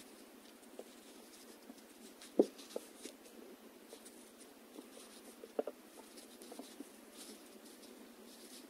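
Faint handling noise of fingers working thin fishing line while tying a double uni knot: light rustling and scattered small ticks, the sharpest about two and a half seconds in and another pair a little past halfway.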